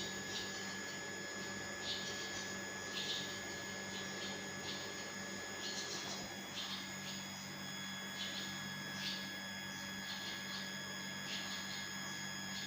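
Short high chirps from barn swallows, coming at irregular intervals about once a second, over a steady electrical hum with a thin high whine.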